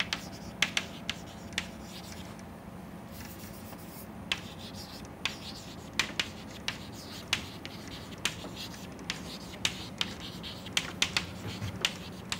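Chalk writing on a chalkboard: scratchy strokes broken by sharp, irregular taps of the chalk on the board, sometimes several in quick succession.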